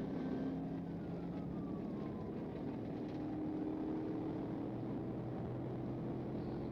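Steady engine and road noise from a patrol car in pursuit, with a faint tone gliding down in pitch over the first two or three seconds.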